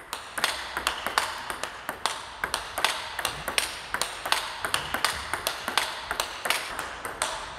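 Table tennis ball ticking off the paddle and bouncing on the table as forehand drives are played close to the table, sharp clicks coming about three to four times a second.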